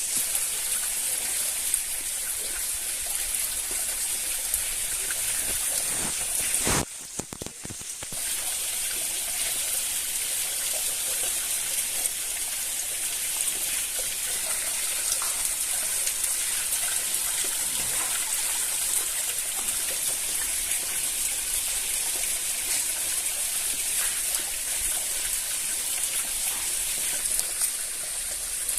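Steady rush of running water, like a forest stream, with a brief dropout about seven seconds in.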